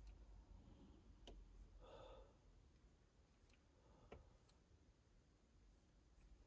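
Near silence with a few faint clicks.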